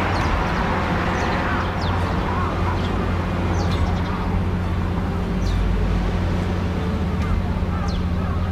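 A steady low rumble with a hum under it. Short, high bird calls recur over it every second or so.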